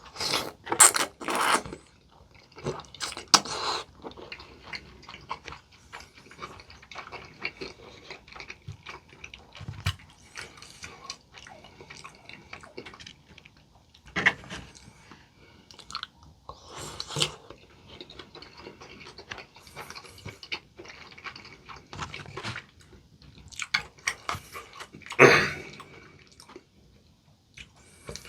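Close-miked chewing and crunching of crispy, potato-coated fried chicken, with a series of small crackles and several louder crunchy bites spread through.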